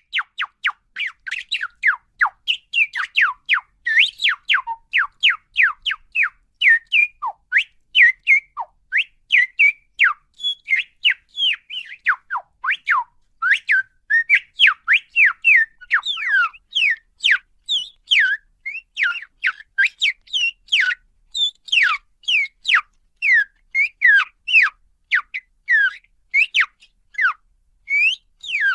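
Parakeet calling in a steady run of short, high whistled chirps, each sliding quickly downward in pitch, about three a second.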